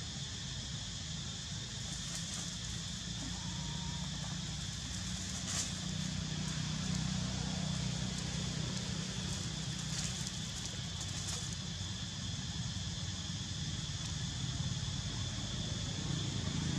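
Outdoor forest ambience: a steady high-pitched insect drone over a low rumble, with a few soft crackles of dry leaves as macaques move across the leaf litter.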